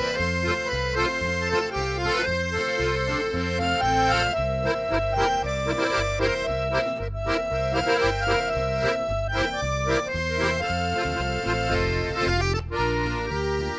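Instrumental German oom-pah music: an accordion carries the tune over a steady, even bass beat. There is a brief break near the end before the next tune starts.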